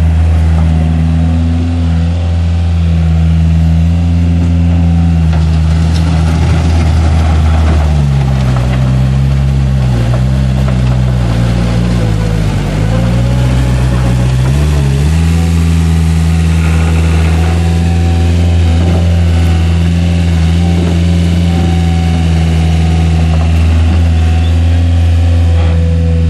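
Takeuchi TL130 skid steer's diesel engine running at a steady speed. About eight seconds in its pitch drops and wavers for several seconds, the engine pulled down as the hydraulics are worked, then it returns to its earlier steady speed.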